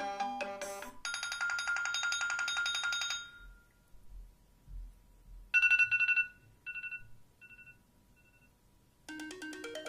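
iOS 7 ringtones previewed one after another: a melodic ringtone ends about a second in, then a rapidly pulsing tone plays for about two seconds. After a short gap a chime sounds four times, quieter each time, and near the end another melodic ringtone begins.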